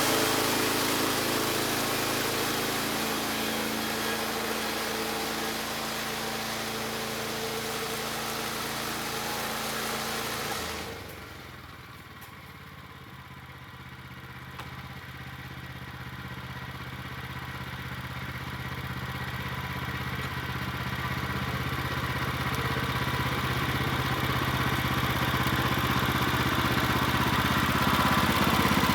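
Woodland Mills HM126 portable bandsaw mill's gasoline engine running at speed with the band blade sawing through oak, a loud steady hiss over the engine. About 11 seconds in the sawing noise stops suddenly and the engine settles to a quieter steady idle, then the level slowly builds again as the mill is brought back up to speed.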